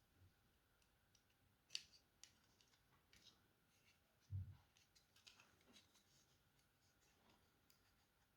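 Faint, scattered clicks and light taps of small plastic mouse parts being handled during disassembly, with a soft low thud about four seconds in.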